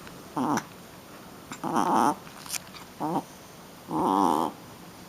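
Shih Tzu puppy making four short, wavering vocal sounds in rough play, the last one the longest.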